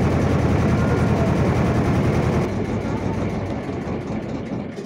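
Fishing boat's engine running with a steady low drone, fading away over the second half.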